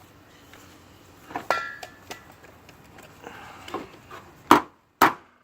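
Metal body-repair tools handled against a car fender: a ringing metallic clink about a second and a half in, a few light knocks, then two sharp taps near the end as the dented fender body line is tapped out.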